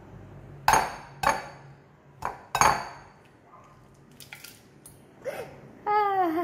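An egg tapped four times against the rim of a glass bowl, sharp clinks in the first three seconds, to crack it open one-handed. Near the end comes a short exclaiming voice falling in pitch.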